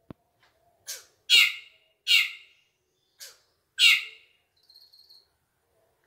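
Caged drongo (srigunting) giving a series of short, loud, harsh calls, about five in four seconds. A brief click comes just before the first call.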